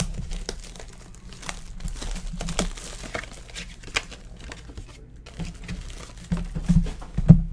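Plastic shrink wrap crinkling and tearing as it is peeled off a trading-card box, in irregular crackles, with a thump near the end.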